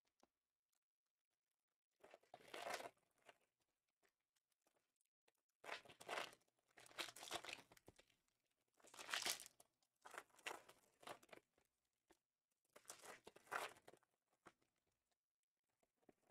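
Plastic wrapping on trading-card packaging being torn and crinkled by hand. It comes in several short bursts with quiet gaps between them.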